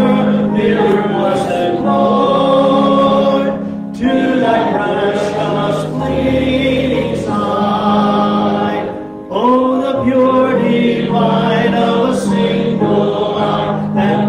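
A hymn sung by a man through a microphone, with electric keyboard accompaniment holding chords beneath; the singing breaks briefly between phrases about four and nine seconds in.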